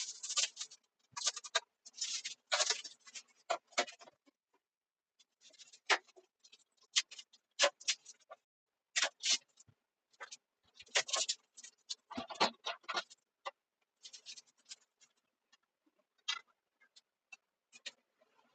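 Irregular clicking, knocking and rustling, played back fast.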